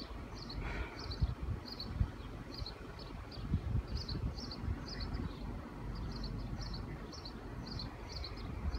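A small bird chirping over and over in short paired high notes, about one to two pairs a second, over a low uneven rumble.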